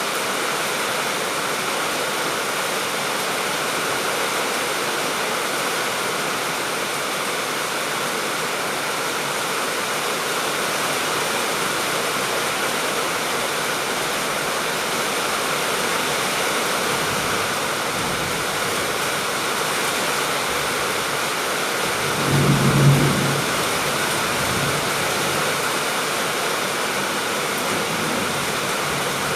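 Steady heavy rain, an even hiss of falling water. About three-quarters of the way through, a brief low rumble rises over it for about a second.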